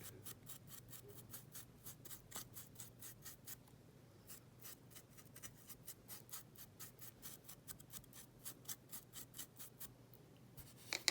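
A brush dabbing topcoat onto a small plastic model-kit part: faint, quick, evenly repeated taps, about three or four a second.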